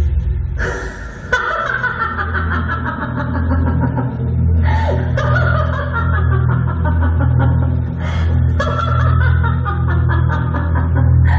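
Dramatic background music for a stage play, with a deep sustained drone and sharp crash-like hits about a second in, near the middle and about eight seconds in.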